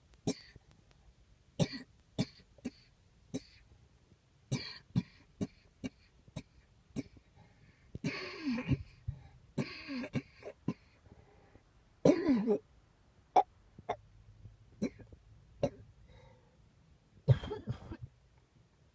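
Coughing: a long run of short, dry coughs, one or two a second, broken by longer, rougher hacking coughs about eight and twelve seconds in and a loud one near the end.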